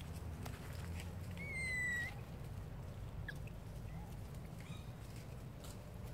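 A baby macaque gives one short, high-pitched cry that falls slightly, about a second and a half in, with a few fainter short calls later. Scattered light ticks and rustles come from monkeys shifting on dry leaves, over a steady low rumble.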